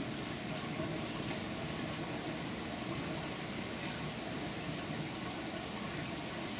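Steady running water in an aquaponics system: a continuous, even trickling rush with no breaks.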